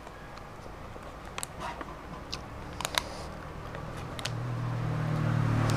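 Eating by hand from a plastic takeaway box: a scattering of short, sharp clicks and taps from fingers picking at the food and from chewing. A low hum swells up in the last third.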